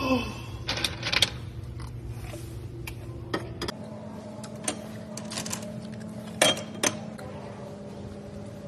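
A coin-operated gumball machine being worked: a series of metallic clicks and knocks from coins and the turning crank mechanism, with two sharper knocks about six and a half and seven seconds in.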